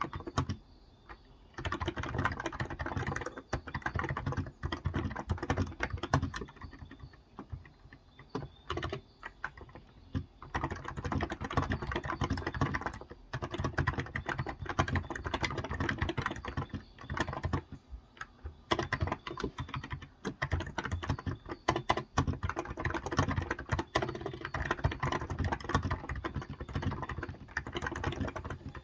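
Typing on a Cox Endeavour tenkeyless keyboard with electrocapacitive (Topre-style) 35 g switches: fast runs of keystrokes with short pauses between them, starting about a second and a half in.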